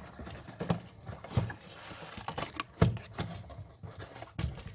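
Irregular knocks and clicks of hard objects being handled, about four sharp knocks with the loudest just before the three-second mark.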